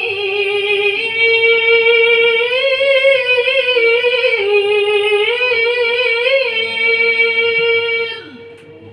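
Melodic Qur'an recitation: a single high-pitched reciter's voice holds one long, ornamented note with wavering pitch turns, ending about eight seconds in.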